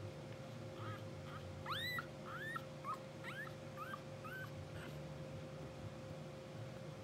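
Newborn English bulldog puppies squeaking and whimpering in their sleep: a run of about eight short, high squeaks that rise and fall in pitch, between about one and four and a half seconds in, over a steady faint hum.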